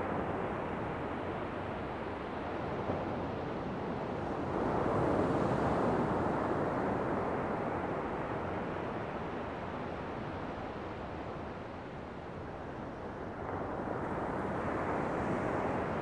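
Ocean surf: waves breaking and washing up the shore in a continuous rush, swelling about five seconds in and again near the end.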